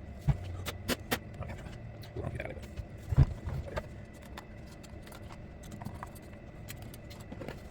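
Irregular clicks and knocks of tools and parts being handled while a chainsaw is cleaned, with one heavier knock about three seconds in.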